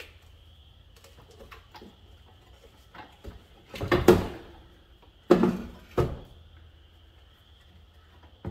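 Metal clanks and knocks from handling battery cables and hardware in an RV's pull-out battery tray: a few light clicks, a louder clatter about four seconds in, then two sharp knocks with a short ring about a second later. A faint steady high whine runs underneath.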